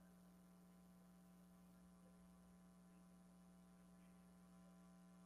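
Near silence, with only a faint steady electrical hum in the audio feed.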